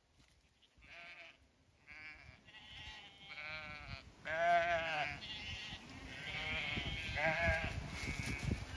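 Zwartbles ewes bleating as the flock runs in, a string of wavering calls from several sheep, growing louder, with the loudest about halfway through.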